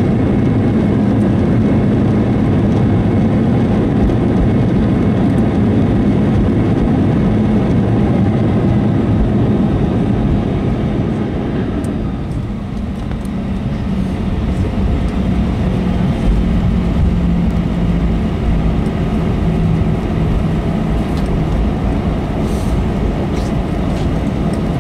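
Airbus A321 cabin noise during landing rollout: jet engines and wheels rumbling on the runway. The noise is loud for the first twelve seconds or so, eases briefly, then settles to a lower rumble as the airliner slows.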